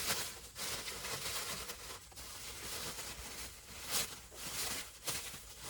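Plastic wrap rustling and crinkling as it is spread and pressed over parts under a car, in irregular swells.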